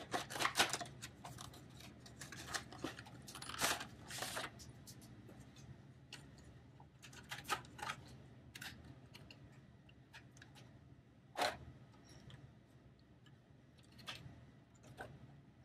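Packaging of a new SIG Sauer P320 grip module being opened and handled: irregular crinkling, rustling and clicks, busiest in the first few seconds, with one sharper rustle about eleven seconds in.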